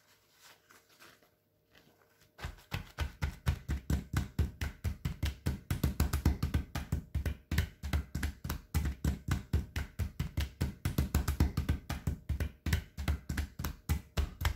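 Hands patting paper towels down onto thawed chicken on a tray to blot off its moisture: a fast run of soft pats, several a second, that starts about two seconds in and keeps on steadily.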